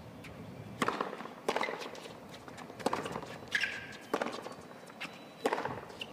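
Tennis rally: a ball struck back and forth by racket strings, about six sharp hits a second or so apart, with a short high squeak about halfway through.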